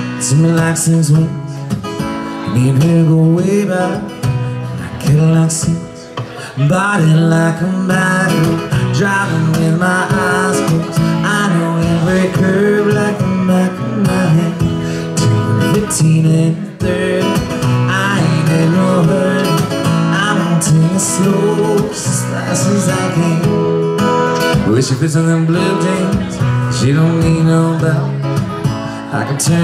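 Acoustic guitar strummed steadily in a live solo performance, played through a PA system.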